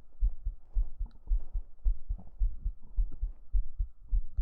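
Human heartbeat picked up close against the chest: a quick, steady pulse of soft low thumps at about two beats a second.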